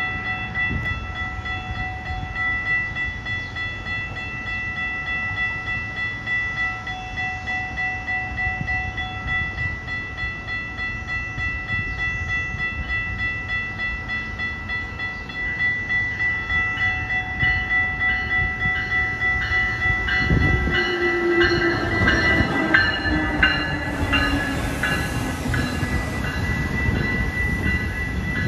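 Amtrak passenger train hauled by a Siemens Charger diesel locomotive approaching and passing at speed, its rumble and wheel-on-rail noise building through the second half and loudest in the last several seconds as the locomotive goes by, with a falling tone as it passes. A warning bell rings steadily throughout, striking about twice a second.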